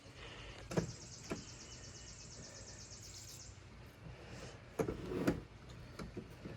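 Handling noise while the motor's wires are fed through the trolling motor shaft: a few light knocks and clunks, with a thin, high, rapidly ticking rasp for about three seconds near the start.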